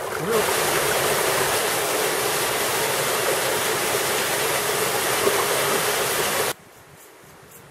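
Small waterfall spilling over rock into a pool: a steady, loud rush of falling water that cuts off suddenly about six and a half seconds in, leaving only a faint hiss.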